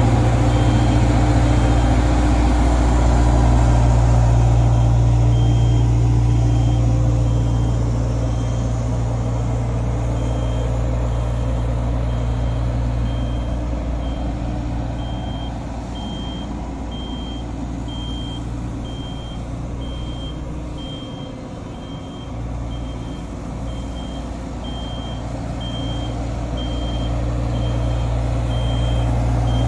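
Diesel engine of a HAMM tandem road roller running steadily, fading in the middle and growing louder again near the end as the roller comes back close. A reversing alarm beeps steadily, about three beeps every two seconds, from about five seconds in.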